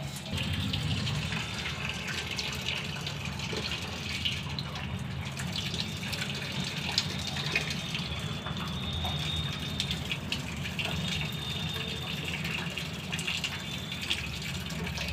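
Coolant running and splashing steadily out of an opened coolant pipe on a Tata Ace Gold BS6's cooling system as trapped air is bled out.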